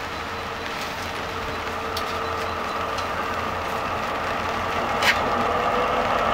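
DB Class 218 diesel-hydraulic locomotive's V12 diesel engine running as it pulls a passenger train out of the station, slowly growing louder as it comes closer. A steady whine rides over the engine, and there is a single sharp click about five seconds in.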